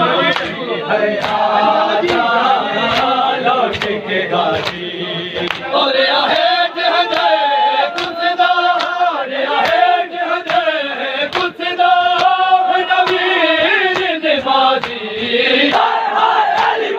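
A group of men chant a Punjabi noha in unison, with a steady beat of hand slaps from matam, mourners striking their chests in time with the chant.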